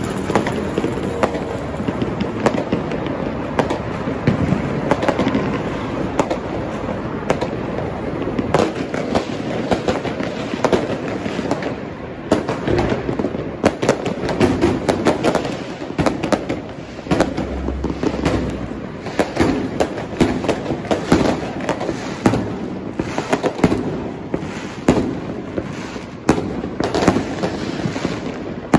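Fireworks going off without a break, a dense run of sharp bangs and crackling reports, many overlapping.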